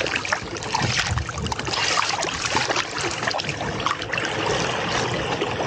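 Seawater sloshing and splashing at the side of a small boat as a sailfish is held at the surface, with many small crackling splashes close to the microphone.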